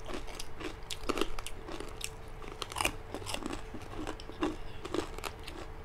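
Two people crunching and chewing crispy deep-fried pork chicharon bagnet bites, close to the microphone, in quick irregular crunches, with a faint steady hum beneath.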